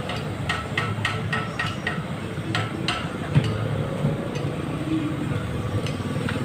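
A steady low engine rumble. It carries a run of sharp, evenly spaced ticks, about four a second, through the first two seconds, and one louder knock about halfway through.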